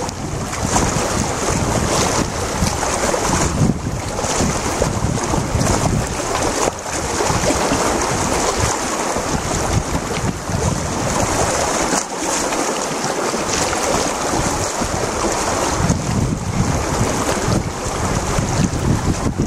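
Kootenay River's water rushing, a steady, even hiss, with low wind rumble on the microphone that comes and goes.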